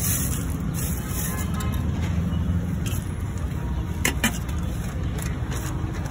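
Steady low rumble of road traffic, with a few sharp clinks of utensils on steel dishes, the loudest pair about four seconds in.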